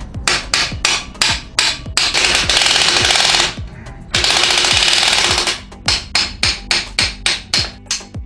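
Two bursts of a power impact wrench rattling, each about a second and a half long, as a bolt on the motorcycle's rear suspension is spun loose, over background music with a steady electronic beat.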